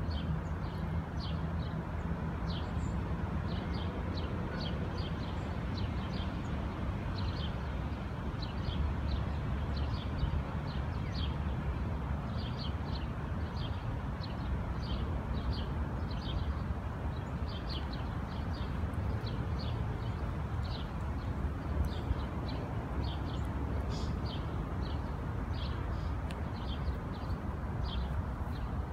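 Canada goose goslings peeping: many short, high peeps, one or two a second, over a steady low rumble of distant city traffic.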